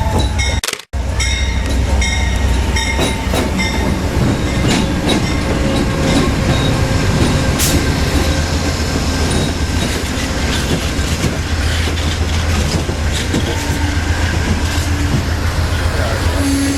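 Railroad train rolling past close by: a steady low rumble of the cars with scattered clicks of wheels over the rails and a few held squealing tones. The audio cuts out briefly just under a second in.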